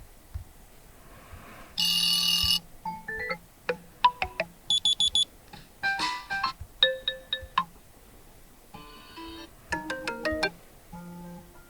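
OnePlus 10T alarm tones previewed one after another through the phone's speaker, each cut off after under a second: several different short electronic chimes and melodies, including a buzzy tone about two seconds in and a quick run of high beeps about five seconds in.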